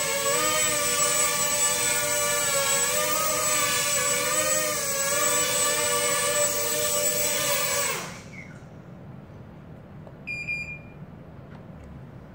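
Micro quadcopter's 4000KV brushless motors and propellers whining as it hovers, the pitch wavering slightly as it drifts. About eight seconds in the motors cut off as it lands, and a short high electronic beep follows about two seconds later.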